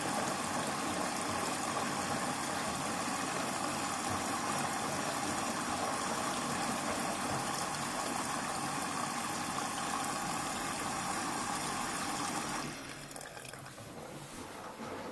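Hoover washing machine's drain pump running with water flowing through it, a steady noise that cuts out suddenly about 13 seconds in, leaving a quieter sound. This is the machine pumping out before the first rinse of its 14-minute quick cycle.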